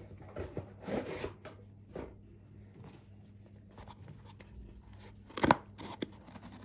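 A small cardboard box being worked open by hand: scraping and rubbing of card as the flaps are pulled, with a sharp tear about five and a half seconds in.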